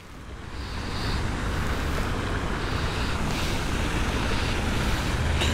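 Wind noise on the microphone: a steady rushing rumble that slowly grows louder.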